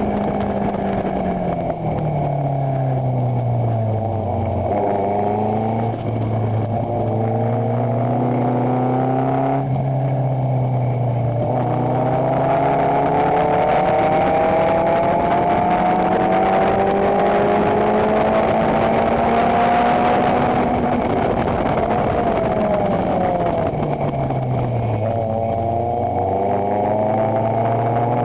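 Chevron race car's engine heard from its open cockpit at racing speed. The revs fall about two to four seconds in as it slows for a corner, then climb in one long steady rise. They drop again a little over twenty seconds in and are rising once more near the end.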